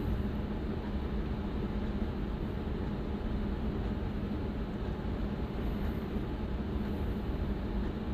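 Steady background room noise: a constant low hum with hiss and no distinct sounds.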